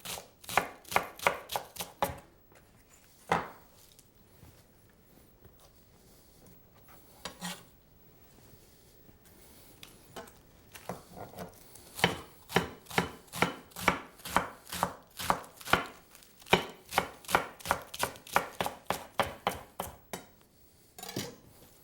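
Knife shredding a head of radicchio on a cutting board: quick, even chopping strokes at about three a second, a pause of several seconds with only a few single knocks, then a long second run of strokes.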